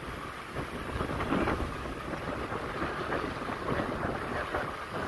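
Wind buffeting the microphone: a gusty low rumble under a steady hiss.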